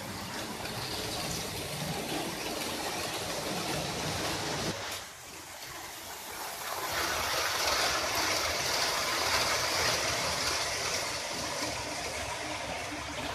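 Model trains running on layout track: a steady hiss and rattle of wheels on rail with motor noise. It drops briefly about five seconds in, then grows louder as a train approaches.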